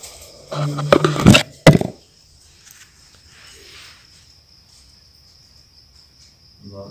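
Crickets chirring steadily with a thin high tone. Between about half a second and two seconds in there is a loud burst of knocks and rustling close to the microphone.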